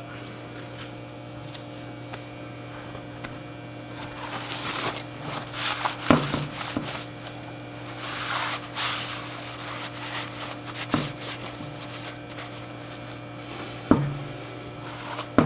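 Steady electrical mains hum, with stretches of rubbing and scraping in the middle and a few sharp knocks, from handling and working on a small trailer wheel and tire.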